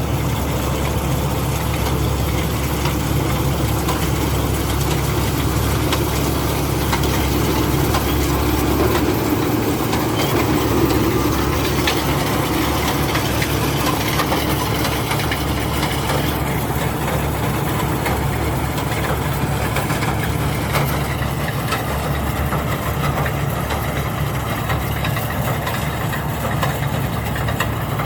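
Rice combine harvester's engine running steadily, with a slight shift in its low drone about nine seconds in.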